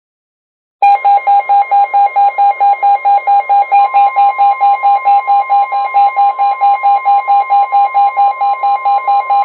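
A Midland WR-120 weather radio's alert alarm beeping rapidly, about four beeps a second, starting about a second in, with a steady higher tone held underneath. It signals a received severe thunderstorm warning.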